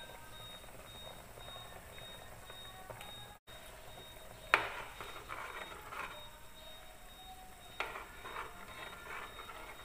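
Metal ladle and spoon stirring soup in an aluminium pot: a sharp clink against the pot about halfway through, another about three seconds later, and softer scraping and clatter between. A faint steady high-pitched tone runs underneath.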